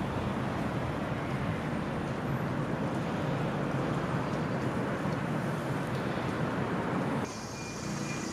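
Steady rumble of city traffic heard across the park. A little past seven seconds it drops abruptly to a quieter background with a faint steady thin whine.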